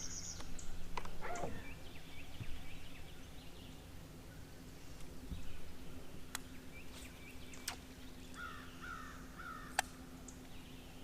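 Bird calling outdoors, three harsh calls in quick succession near the end, over a faint steady low hum and a few sharp clicks.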